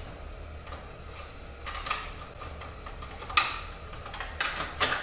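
Sharp clicks and knocks of a mitre saw's quick-release stop being worked against its bar as it refuses to slide on, five or so in all, the loudest about three and a half seconds in. A burr inside the stop's machined slot is keeping it from going on.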